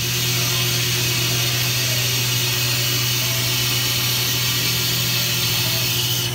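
2003 Fadal 4020HT CNC vertical mill running with its spindle turning: a steady, high whirring hiss over a low hum.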